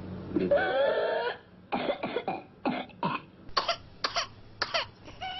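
Whooping-cough (pertussis) paroxysm: a drawn-out, high-pitched whooping breath, then a rapid run of short, harsh coughs in quick clusters. This is the signature cough of the disease.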